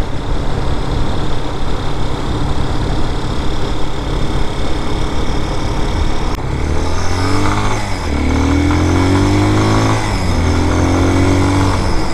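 Air-cooled 250cc single-cylinder engine of a Vitacci Raven 250 dirt bike running under way over a steady rushing noise. From about seven seconds in the engine note becomes clearer and rises and falls as the bike pulls, dipping briefly once.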